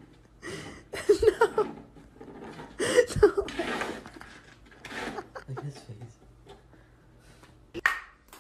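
A person laughing in short bursts while a cardboard box crumples and gives way under a cat, then a sharp tap near the end.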